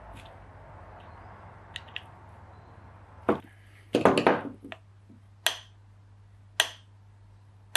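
Sharp metallic clicks, roughly one a second with a short clatter about four seconds in, as the throttle spindle and brass butterflies of a Dellorto DHLA carburettor are worked by hand and snap shut against the bores. A faint steady hum sits underneath.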